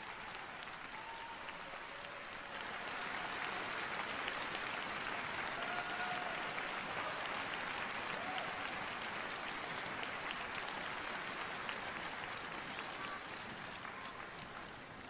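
Arena audience applauding, swelling a few seconds in and easing off near the end.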